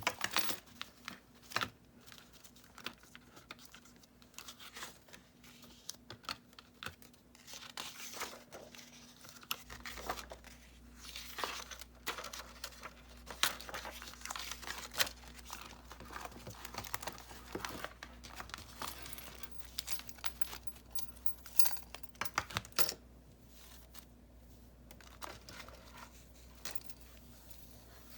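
Paper pages of a handmade junk journal being turned and handled: irregular rustling and crinkling with scattered short, sharp clicks.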